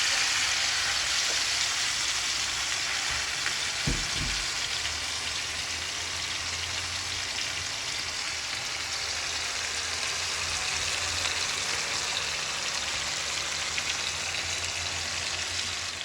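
Chicken breast pieces sizzling steadily in hot oil in a pan as they sear to brown. There is a single knock about four seconds in.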